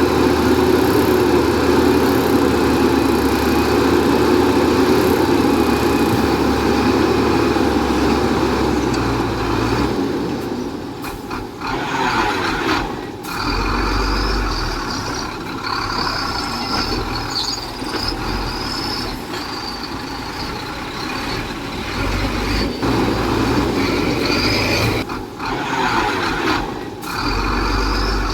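Heavy earthmoving machinery and trucks running. There is a steady diesel engine drone at first, and the engine sound changes and varies after about ten seconds, with intermittent high squeaks over the rest.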